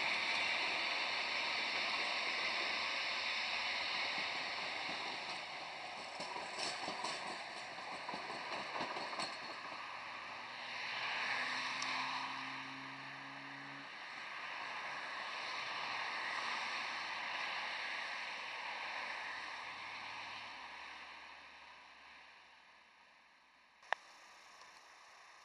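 Electric tram rolling past on the rails with a broad rushing noise, loudest at first and fading over about twenty seconds as it moves away; a low steady hum sounds for a few seconds midway, and a single sharp click comes near the end.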